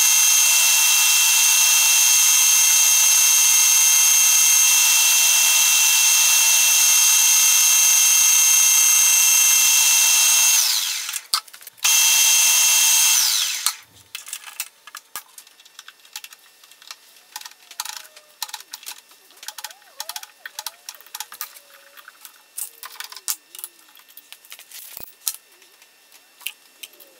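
Colchester Student metal lathe running while a drill bit in the tailstock chuck bores into the end of the spinning bar, a loud steady whine with several high tones. It cuts out for about a second near the eleven-second mark, runs again, then winds down with a falling pitch at about thirteen seconds, followed by scattered light clicks and rattles.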